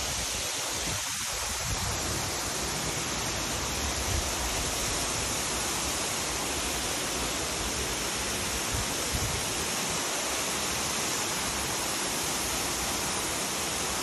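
Wentworth Falls waterfall, a steady, even rush of falling water heard close to the foot of the falls.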